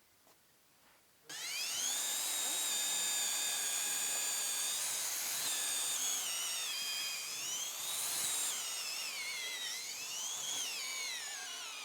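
Cordless drill spinning up about a second in and running at high speed with a steady high-pitched whine, its pitch sagging twice under load and recovering.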